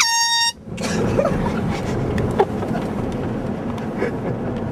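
Air horn blast: one steady, piercing tone about half a second long that cuts off abruptly. It is followed by steady vehicle and wind noise.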